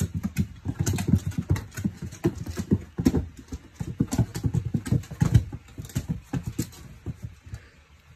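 A cat's paws thumping and slapping on a laminate floor as it pounces after a laser dot: many quick, irregular knocks, several a second, thinning out near the end.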